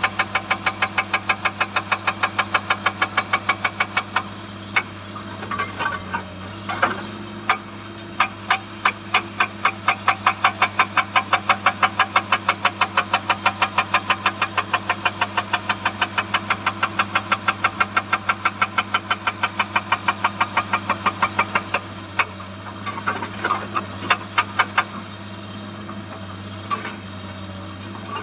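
Hydraulic rock breaker on a Komatsu excavator hammering in fast, even blows of about five a second, over the steady running of the excavator's diesel engine. The hammering stops twice, about four seconds in and again near twenty-two seconds, with a few loose knocks in each gap before the blows resume.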